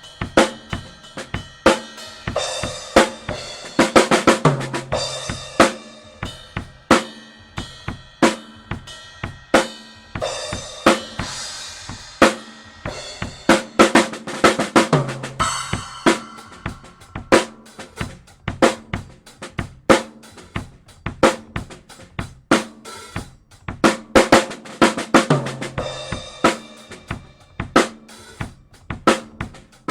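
Drum kit played as a steady groove, the snare drum picked up by an AKG P3S dynamic microphone, with kick and hi-hat. About every ten seconds a busier fill with cymbal crashes ends on a low drum hit.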